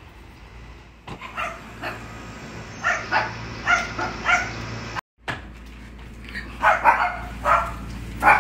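A dog barking again and again in short barks, a few each second.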